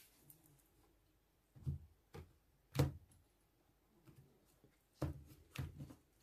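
A deck of tarot cards handled on a tabletop: a few short knocks as the deck is tapped and set down on the table, in two groups, the loudest about three seconds in, with faint card rustling between.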